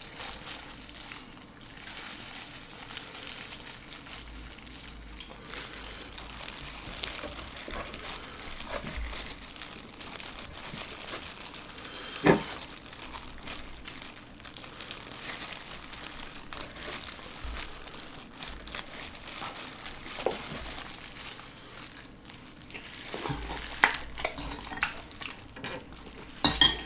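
Close-miked eating sounds: wet chewing and smacking of soy-marinated shrimp and rice, with the crinkle of disposable plastic gloves as the shrimp is handled. A few sharp clicks stand out, the loudest about midway and near the end.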